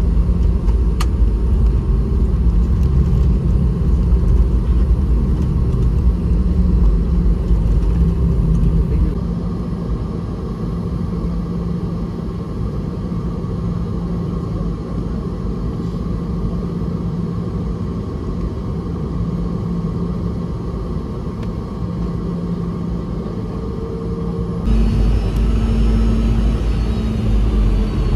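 Cabin noise inside a Boeing 717-200 with rear-mounted Rolls-Royce BR715 engines: a steady engine hum over a heavy low rumble. The rumble eases about a third of the way in, and near the end the sound steps up, louder and with more hiss.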